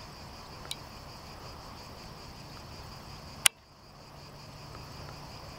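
Steady high-pitched chirring of crickets. A faint tick comes under a second in, and a single sharp click about three and a half seconds in, after which the background briefly drops away and comes back.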